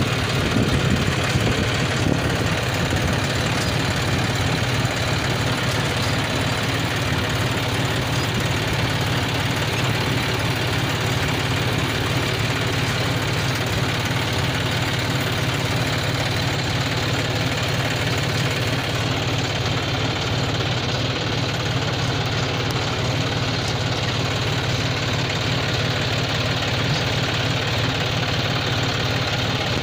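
John Deere 5105 tractor's three-cylinder diesel engine running steadily under load as it pulls a seed drill used for inter-row weeding and fertilising of soybeans.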